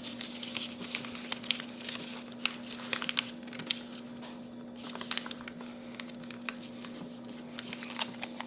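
Paper being folded and creased by hand: a run of soft crinkles and short crisp clicks as folds are pressed flat, over a steady low electrical hum.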